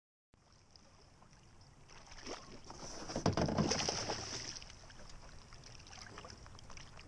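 A hooked largemouth bass thrashing and splashing at the water's surface beside a kayak, loudest about three to four seconds in, then quieter splashes as it is brought in by hand.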